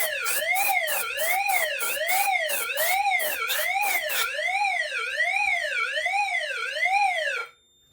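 Fire alarm system's suppression-release signal: a loud siren tone sweeping up and down about twice a second, from the system's speakers. It is the signal that the suppression releasing system has been activated. A fast pulsing buzz runs under it for the first four seconds or so, and the siren cuts off suddenly near the end.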